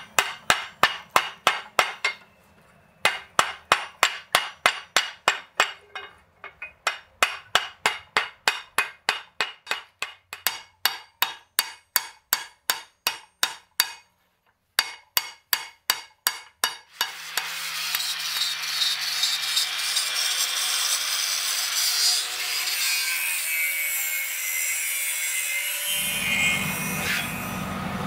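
Fast, even hammer blows on the red-hot end of a steel pipe resting on an anvil, about three to four strikes a second, with two short pauses. About seventeen seconds in the blows stop and a steady loud rushing noise with a low hum takes over.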